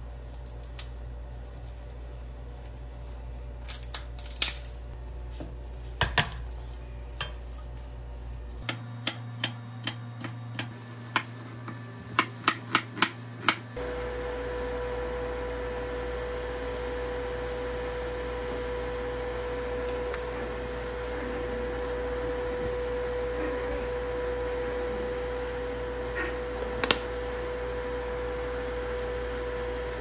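Garlic being handled and cut on a wooden cutting board: scattered taps and clicks, then a quick run of sharp knife taps about nine to fourteen seconds in. After that a pot of water boils on an induction cooker, with a steady hum and a bubbling hiss, and a couple of metal clinks of a wire strainer spoon against the pot near the end.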